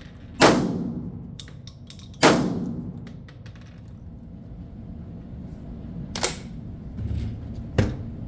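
Stoeger M3000 semi-automatic 12-gauge shotgun firing two shots about two seconds apart, each with a long echoing tail and light metallic clicks between them, followed later by two quieter sharp cracks.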